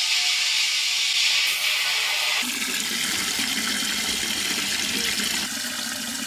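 Garden hose with a spray nozzle filling a large stainless steel boiling pot: a steady hissing spray on the bare metal that turns, about two and a half seconds in, into a lower, fuller splashing gush as water collects in the pot.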